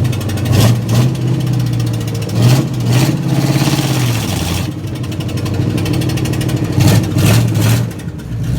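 A vehicle engine idling steadily, with several short sharp knocks or pops over it.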